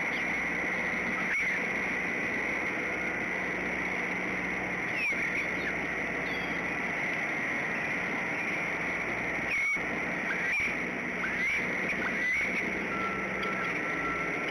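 Steady outdoor hiss at a bald eagle nest, with a few short high bird chirps and faint clicks scattered through it.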